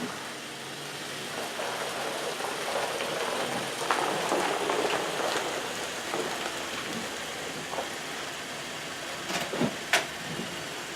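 A car creeping slowly straight forward onto a plastic garage floor containment mat, its tyres crackling and rustling over the mat, loudest a few seconds in. A couple of sharp clicks come near the end.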